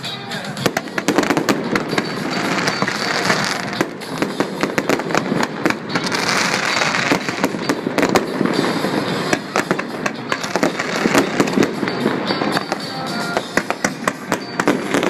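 Fireworks bursting and crackling in rapid, continuous succession, over music.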